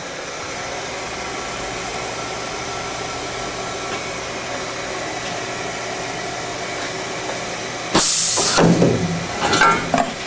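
Aluminium CNC machining centre running with a steady mechanical hum, then about eight seconds in a sudden loud hiss lasting about half a second, followed by a few shorter irregular hisses and rattles near the end.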